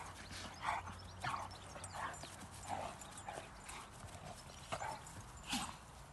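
Two Rhodesian Ridgebacks play-fighting: a string of short, irregular scuffling sounds from the dogs, one or two a second, with a sharper one near the end.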